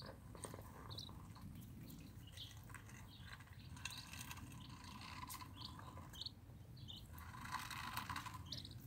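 Madagascar teal ducklings peeping: short, high calls scattered throughout. Near the end comes a busier patch of clicking and rustling as the birds peck at seed in a metal dish.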